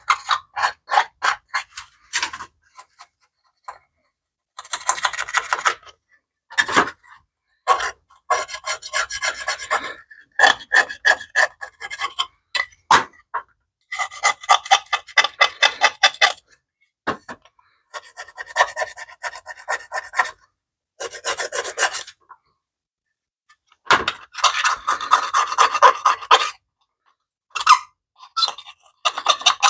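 A pointed hand tool scraping caked grime off a BMW E30 motor mount heat shield, in short runs of quick strokes with brief pauses between them.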